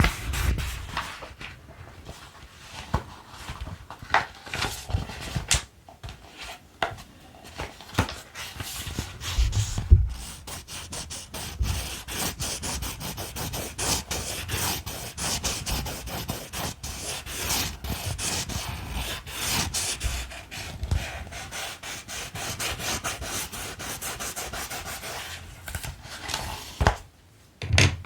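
Colored pencils rubbing and scratching in quick strokes, with scattered separate strokes and clicks at first, then a dense continuous run of strokes from about ten seconds in that stops suddenly near the end.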